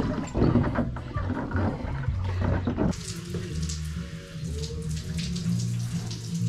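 Water running and splashing in a hot tub, starting suddenly about three seconds in as a steady rush, over a constant low hum.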